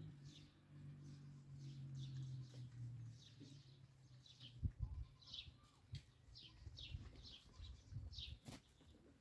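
A small bird chirping over and over, faint short falling notes a couple of times a second. A low steady hum stops about three seconds in, and a few soft knocks come later.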